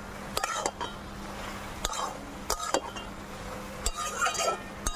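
Metal spatula scraping and clinking against an aluminium kadai while stir-frying chopped yam stems and prawns, in irregular strokes about once a second, over a low steady hum.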